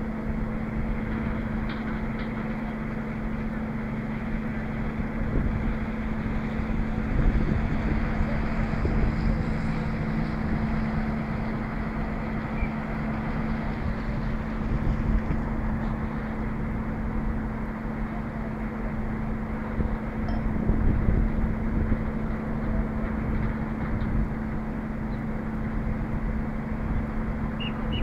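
Diesel engine of a mobile truck crane running steadily at a constant pitch, with wind rumbling on the microphone.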